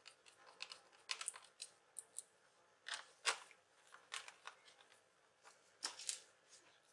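Faint, scattered clicks and scrapes of hands handling the plastic underside of a laptop.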